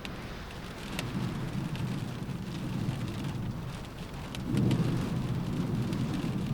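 Rain drumming on a car roof, with scattered sharp drop taps over a steady patter. Low rumbling swells rise about a second in and more strongly about four and a half seconds in.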